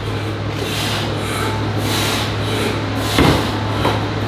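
Steady low hum under a noisy room haze, with a single short knock about three seconds in.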